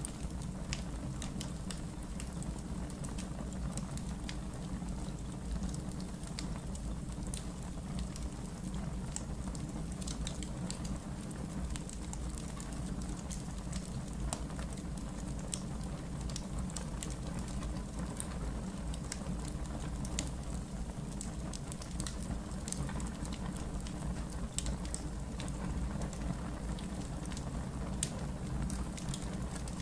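Wood fire in a fireplace crackling, with frequent small sharp pops scattered over a steady low rumble.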